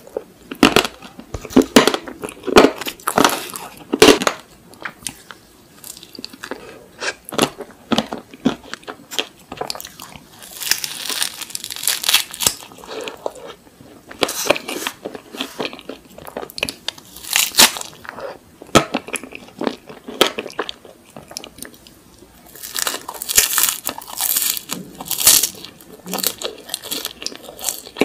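Close-miked biting and chewing of an ice cream cone topped with candy sprinkles, held in a wafer cone: repeated crisp crunches and crackles, with wet chewing and mouth sounds between bites.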